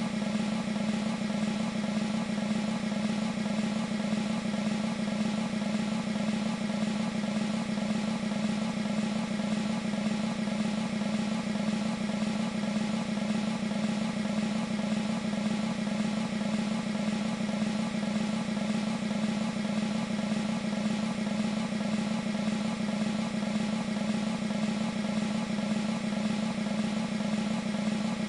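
Sampled military snare drum playing a continuous, steady roll, from the E-mu Proteus 2 sound module's Percussion 1 patch.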